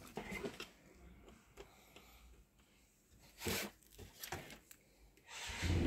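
Hands handling fan wires and plug connectors: light rustling and small clicks, with a louder rustle about three and a half seconds in. Near the end a computer-style DC cooling fan starts up and runs with a steady low hum.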